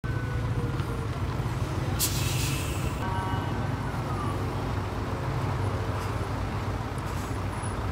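Diesel engines of large passenger coaches running at low speed, a steady low rumble. About two seconds in there is a short hiss of air brakes.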